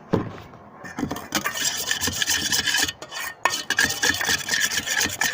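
Slime mixture of glue and laundry detergent being stirred in a container, a utensil scraping and rubbing against its sides in quick rough strokes, with a short pause midway.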